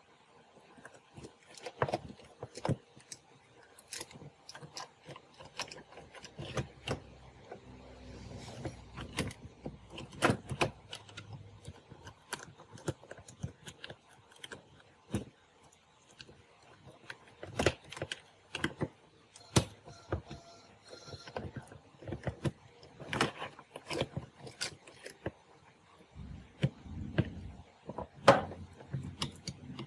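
Irregular clicks, taps and knocks of small hard parts and hand tools being handled during work on a cassette radio.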